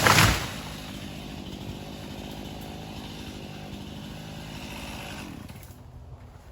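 A felled tree crashes to the ground at the start, then a chainsaw runs steadily at idle for about five seconds and stops near the end.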